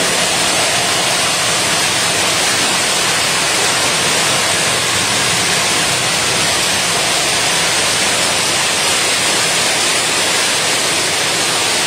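Heavy rain pouring down in a steady, loud hiss.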